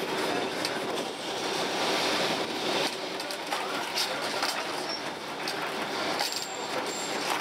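Lisbon electric tram running along street rails, heard from inside the carriage: a steady rumble with frequent clicks and clacks of wheels and fittings. Two short high-pitched squeaks come near the end.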